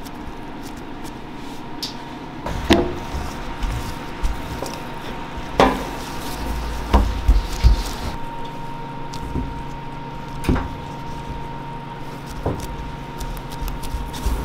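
Scattered knocks and light clatter from handling bagel dough and a sheet pan on a stainless steel work table, about six sharper knocks in all. A steady hum of kitchen equipment runs underneath.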